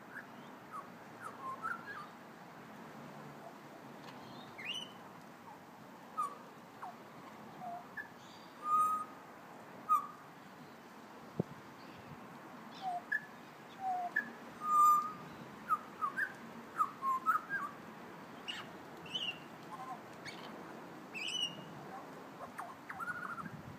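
Australian magpie singing a quiet, rambling warble of short whistled notes and slurred glides, irregularly spaced, with the loudest notes near the middle.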